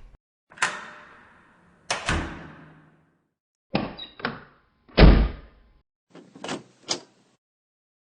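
Three door open-and-close sound effects in a row: short clicks and swinging or shutting sounds that die away, with a heavy thud about five seconds in, the loudest of them.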